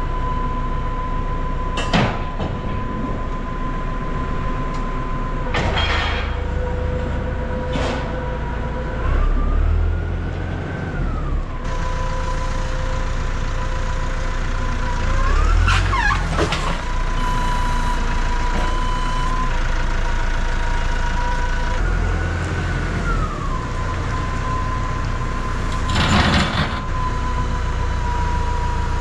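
Tractor engine running with a steady high whine that rises in pitch and falls back again several times as the engine is revved, working the rear linkage to pick up and load a wrapped silage bale. A few sharp clunks of metal knock through it.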